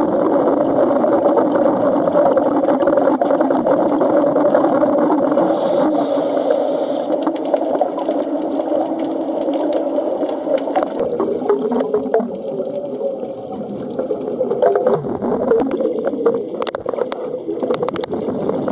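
Underwater sound picked up by the camera at depth: a steady mechanical drone with two held low tones, joined in the later seconds by the crackle of a scuba diver's exhaled bubbles.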